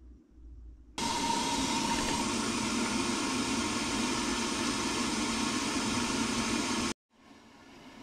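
Samsung top-load washing machine filling on a Deep Fill cycle: about a second in, cold water starts pouring from the dispenser onto the clothes in the drum with a sudden steady rush. Near the end the rush breaks off abruptly, then comes back growing louder.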